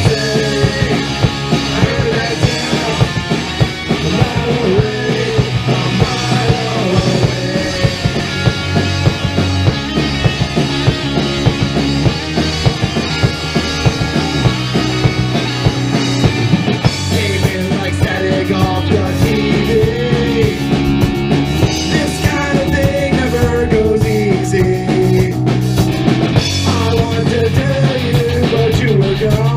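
A punk-rock band playing live: electric guitar, bass guitar and drum kit, with a steady drum beat and no sung words.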